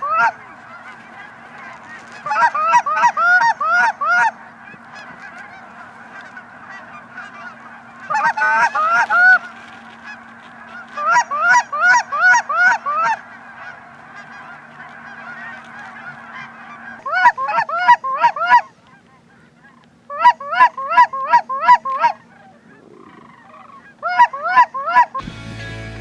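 Canada goose honking: quick runs of six or seven honks, about three a second, repeated every few seconds. Music comes in just before the end.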